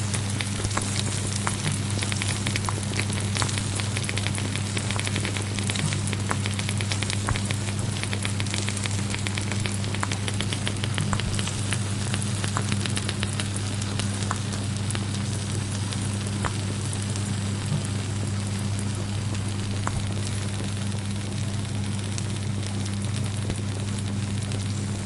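Food sizzling and crackling in a hot pan, a steady hiss dotted with small pops, as in cooking for a lasagna. A steady low hum runs underneath.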